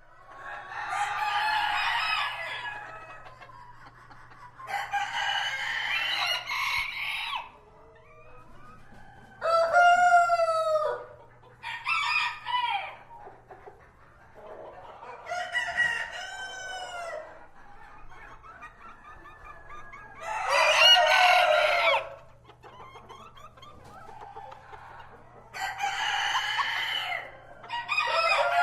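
Roosters crowing cock-a-doodle-doo in turn, about eight crows of one to three seconds each with short pauses between, some calls higher and clearer than others.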